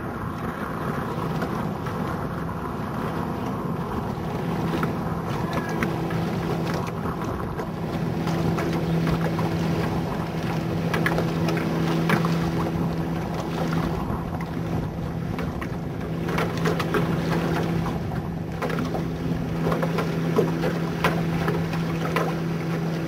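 Wind buffeting the microphone and water rushing past an A-Class catamaran under sail, with a steady low hum underneath.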